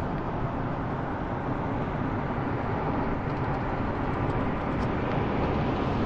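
Steady road noise inside a car's cabin while driving at highway speed.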